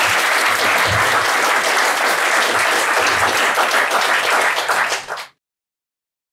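Audience applauding steadily, cut off suddenly a little after five seconds in.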